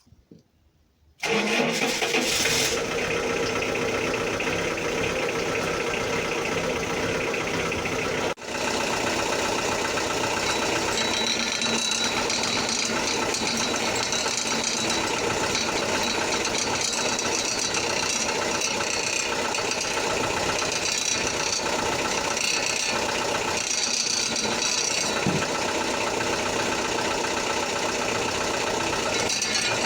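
Engine running steadily with a rattle, coming in abruptly about a second in, with a brief dropout about eight seconds in.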